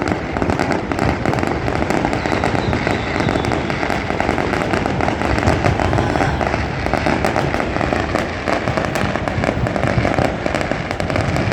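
Many fireworks and firecrackers going off across a city at once: a dense, continuous crackle of bangs and pops blurring into one steady rumble with no pauses.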